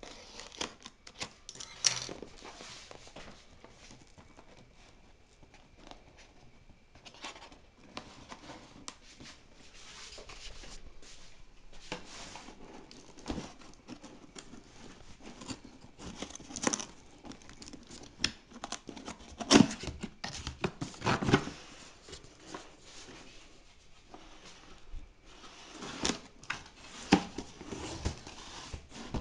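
Cardboard shipping box being cut open and unpacked: a box cutter slicing the packing tape, then cardboard flaps and the inner box scraping, rustling and knocking, with a few sharper thumps.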